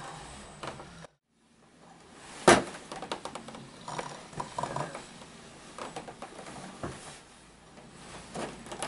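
Ninebot One S2 electric unicycle rocking back and forth on a rug: short whines from its motor, mixed with irregular clicks and knocks. The loudest is a sharp knock about two and a half seconds in.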